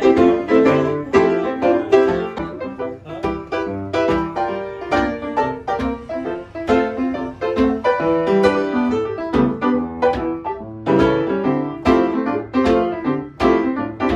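A piano played live: a lively tune of quick notes and chords.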